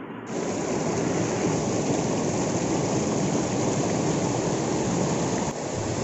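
Steady rushing roar of the Chilanthiyar waterfall's falling water, cutting in abruptly a moment in and holding even.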